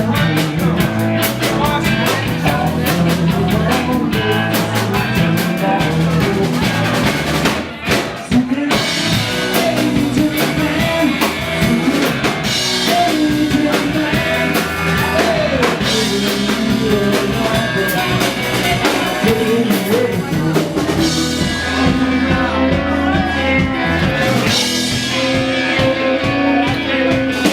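Live rock band playing: drum kit, electric guitar and bass driving a steady beat, with some singing. The band breaks off for a moment about eight seconds in, then comes straight back.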